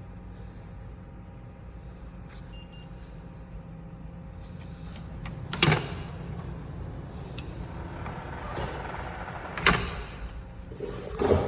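Steady low mechanical hum from the vending machine, with three loud knocks: one about six seconds in and two near the end, around ten and eleven seconds.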